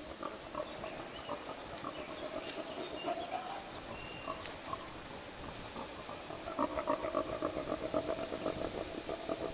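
Rapid, repeated animal calls, growing louder over the last three seconds.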